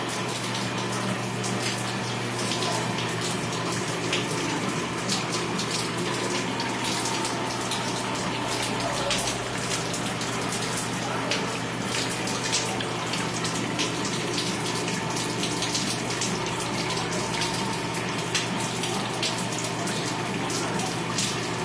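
Steady rush of flowing, splashing water over a constant low hum of pumping machinery.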